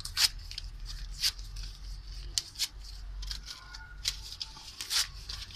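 Newspaper being torn by hand into small pieces for a compost pile's dry-waste layer: about half a dozen short rips at irregular intervals.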